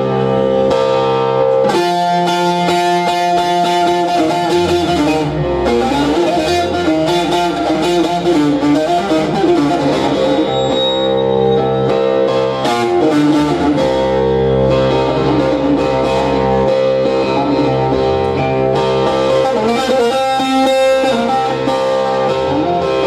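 Amplified bağlama (saz) played instrumentally, quick plucked melodic runs over steady held notes underneath.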